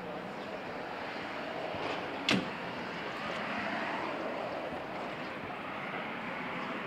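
Steady outdoor street noise with vehicles running, and one sharp click a little over two seconds in.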